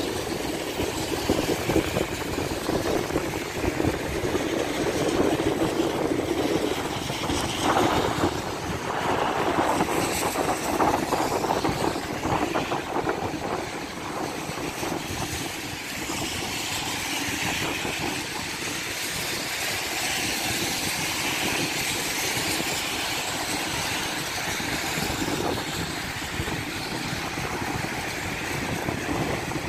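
Cars driving past on a rain-wet road, their tyres hissing on the wet asphalt over a steady rushing noise. The loudest pass comes about eight to thirteen seconds in.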